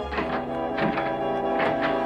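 Background music of held chords, with several short knocks.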